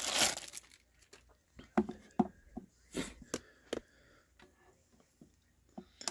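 A small plastic bag of airsoft BBs being handled: a brief crinkle near the start, then scattered light clicks and taps.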